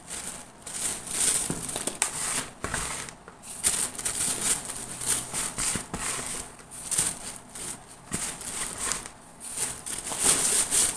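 Clear plastic grow bag crinkling and rustling in irregular bursts as handfuls of sawdust substrate are scooped from a plastic basin and dropped and pressed into it.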